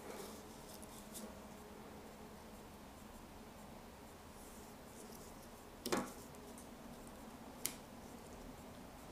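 Quiet room with a steady low hum, and a few small clicks of hands working small electronics boards on a tabletop. One louder knock comes about six seconds in, and a sharp click near the end.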